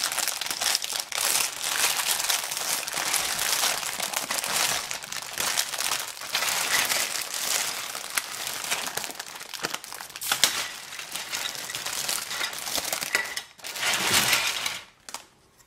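Clear plastic parts bag crinkling steadily as hands pull it open and work through the parts inside. It stops after a last brief rustle near the end.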